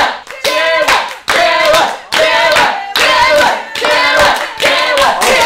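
A small group clapping in rhythm while their voices chant or shout in time, egging the pair on to kiss.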